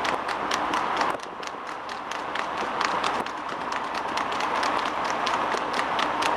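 Hooves of two harness horses clattering on tarmac at a fast trot: a rapid, even patter of clip-clops. A steady rushing noise runs underneath, dipping for a couple of seconds after the first second.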